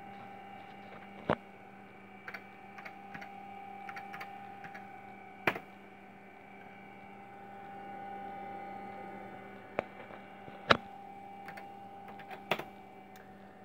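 Running IBM PS/2 P70 portable computer giving off a steady electrical hum, with a few sharp clicks and fainter ticks scattered through.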